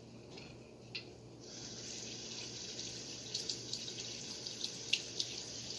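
Kitchen faucet turned on about a second and a half in, a thin stream of water running into the sink and over the sprinkler's gear unit, with small clicks of the part being handled under it. The water is being run to flush a dirt clog out of the sprinkler's drive mechanism.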